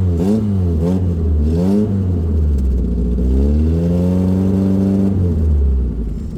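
Peugeot 205 Rallye engine being revved: three quick blips of the throttle, then revs held up for about two seconds before dropping back to idle near the end.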